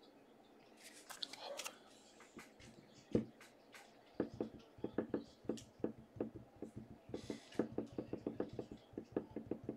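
Stack of glossy Panini Prizm football cards being handled and flipped through one at a time. There is a short rustle of the stack, a single knock, and from about four seconds in a quick run of sharp card snaps, about three to four a second.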